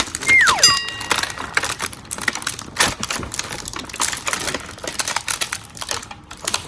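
Dense, irregular clicking and clattering of small toy pieces and packaging being handled. A brief whistle-like tone falls in pitch about half a second in and is followed by a short steady tone.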